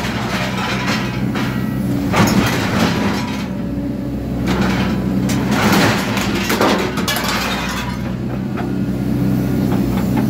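Excavator's diesel engine running steadily while its hydraulic shear attachment crushes and crams cut-up metal roo bars into a skip bin, with several bursts of metal crunching and clanking.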